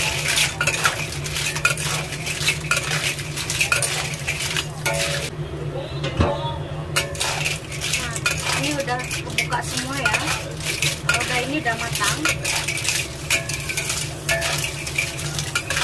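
A metal spatula scraping and clacking against a black wok as clams in their shells are stir-fried, the shells clattering in the pan. The scraping pauses briefly about five seconds in.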